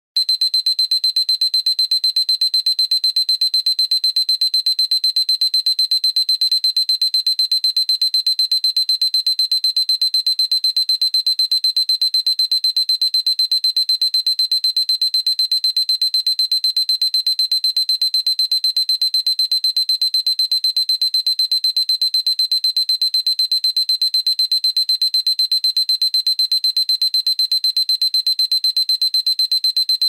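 Electronic alarm clock beeping: one high-pitched tone pulsing on and off rapidly and evenly, without let-up.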